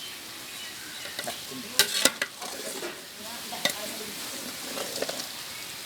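Chicken pieces sizzling as they fry in a cooking pot while being stirred with a ladle, with a few sharp scrapes and clinks of the ladle against the pot. The chicken is still browning, not yet done.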